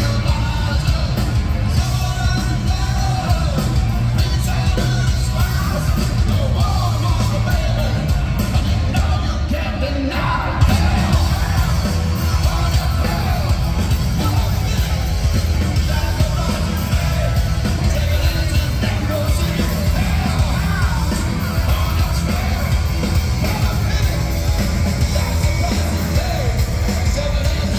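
Live rock band playing loud through a venue PA, with bass guitar under a sung, shouted lead vocal, heard from among the audience.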